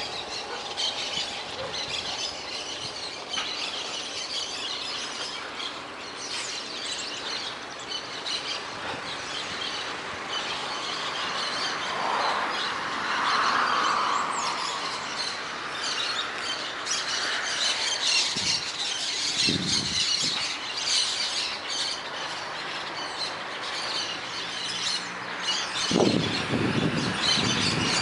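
Many birds chirping and calling together in a morning chorus, densely and without a break. Road traffic rises and falls under it, with a vehicle passing about halfway through and another growing louder near the end.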